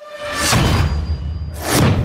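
Logo-reveal sound effect: two whooshes about a second apart over a deep rumble.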